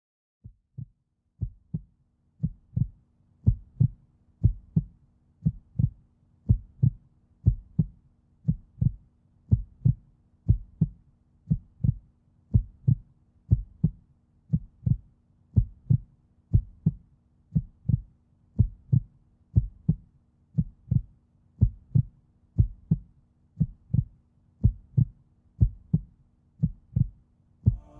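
Heartbeat sound effect: a steady double thump, about once a second, fading in over the first couple of seconds, over a faint low hum.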